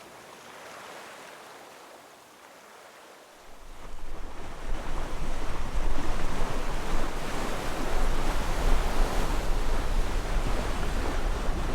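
Sea wash and wind on a sailboat under way, with wind buffeting the microphone. Faint for about the first three seconds, then it rises to a steady rush with a low rumble.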